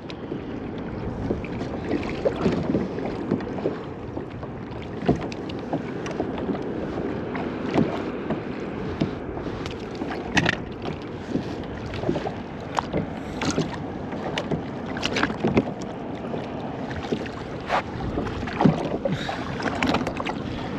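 Scattered knocks and clicks of gear being handled aboard a fishing kayak, at irregular intervals over a steady background hiss.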